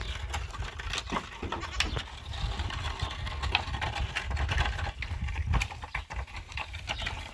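Flock of sheep and goats, bleating amid many scattered small clicks and knocks, over a low rumble.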